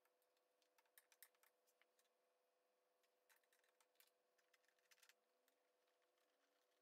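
Near silence, with a few faint scattered clicks and taps from hands working the plastic cover at the front of a push mower's engine.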